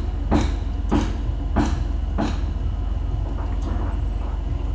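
Sharp clicks at a regular beat of about one every 0.6 s, four in a row, stopping about halfway through, over a steady low hum.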